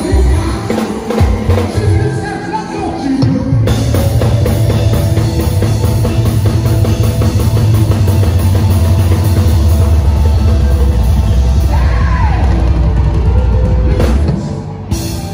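Live band music with drum kit and talking drum. About four seconds in it swells into a loud, dense passage over a deep steady bass, easing off again near the end.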